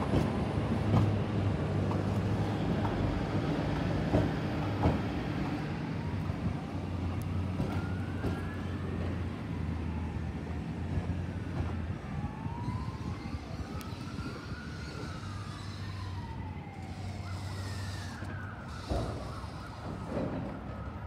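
An emergency vehicle siren wailing, its rising and falling sweeps starting about six seconds in and overlapping one another, over the steady low rumble of a diesel freight train passing with its container wagons.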